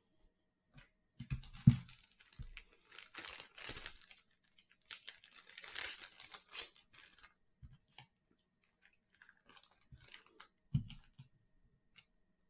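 A trading-card blaster box and its packs being torn open: bursts of tearing and crinkling wrapper, with a sharp knock about one and a half seconds in and another near eleven seconds.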